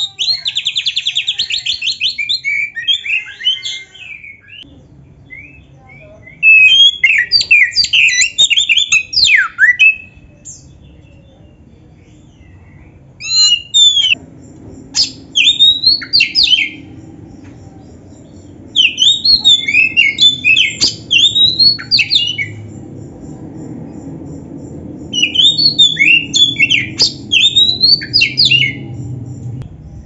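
Oriental magpie-robin (kacer) singing loudly in bursts of a few seconds: rapid, varied whistled notes, slurs and trills, opening with a fast buzzy trill, with short pauses between phrases, about five song bursts in all.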